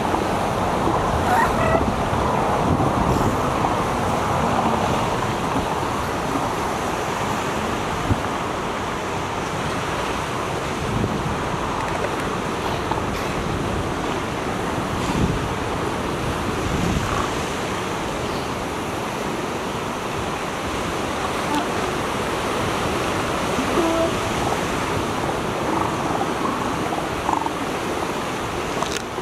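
Steady rush of ocean surf breaking on the beach, with a few faint, short low calls from elephant seals in the colony scattered through it.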